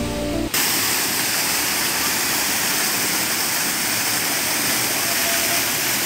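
Waterfall pouring down a rock face: a steady, even rush of falling water. Background music cuts off about half a second in.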